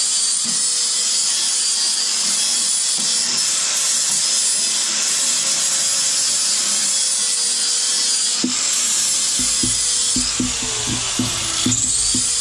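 Angle grinder dressing down weld beads on the steel rear crossmember of a Land Rover Defender 110: a steady, high grinding over the motor's whine, which sags in pitch as the disc bites. From about eight seconds in, an irregular low pulsing joins it.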